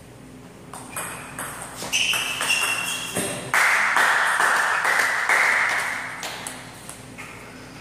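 A fast table tennis rally: the celluloid ball clicks off paddles and table in quick succession. Then, as the point ends, comes a loud burst of noise lasting about two and a half seconds.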